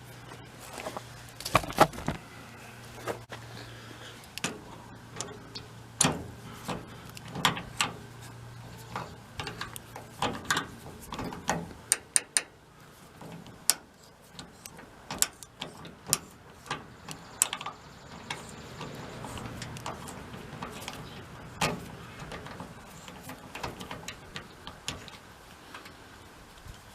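Irregular clicks and knocks of hand tools on metal while working on a VW bus's rusted door hinge bolts, with a faint steady low hum through the first half.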